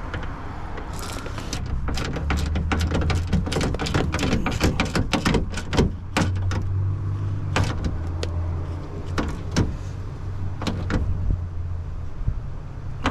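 Irregular clicks and knocks of hand work on a 1995 Ford F-150's inside door handle and its mounting nut, over a steady low hum.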